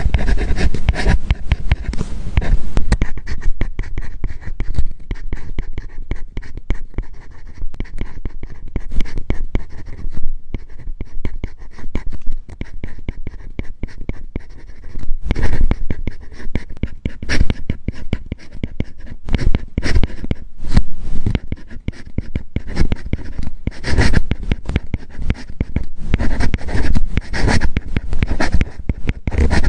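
Apple Pencil writing on an iPad fitted with a paper-like matte screen protector: a close, continuous run of quick nib scratches and taps, louder and busier in the second half.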